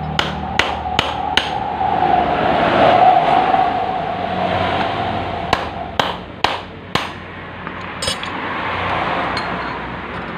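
Sharp metal-on-metal knocks of screwdrivers working a scooter's CVT secondary pulley loose: four quick knocks in the first second and a half, then a few more scattered about halfway through, over a steady background hum that swells and fades in the first half.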